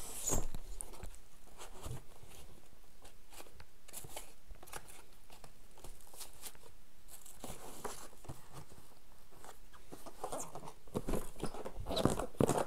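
Rustling and small clicks of things being handled, with a sharp knock about half a second in and louder rustling near the end.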